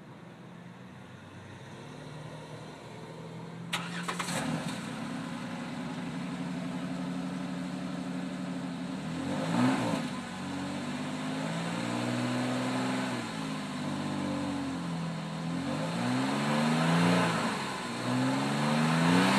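Jeep Wrangler JK's V6 through its stock exhaust: it starts about four seconds in and settles to an idle. It is then revved briefly several times, each rev rising and falling in pitch.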